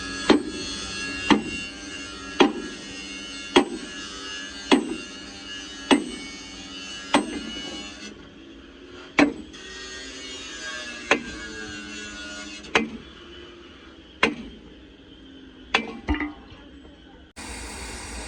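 A hammer striking metal, about once a second at first and then more slowly and unevenly, each blow ringing briefly. Near the end it cuts to a steady hiss.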